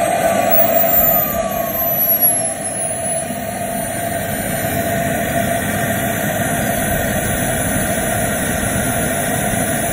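JetCentral Rabbit 100 model jet turbine running: its high whine falls in pitch over the first two to three seconds, then holds steady over a steady rushing exhaust noise.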